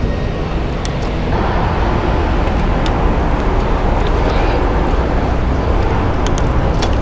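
Steady rush of wind over a helmet-mounted GoPro's microphone while cycling through traffic, with road and traffic noise underneath. It thickens a little about a second in, and there are a few faint clicks.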